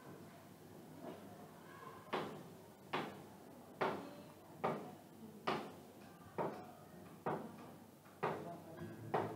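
Steady background knocking: nine heavy knocks or thuds at an even pace, a little faster than one a second, starting about two seconds in, each dying away quickly.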